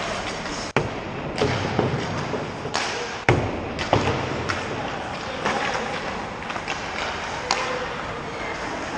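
Ice hockey practice: pucks and sticks striking in irregular sharp knocks, the loudest a little past three seconds in, over a steady hiss of skates on the ice.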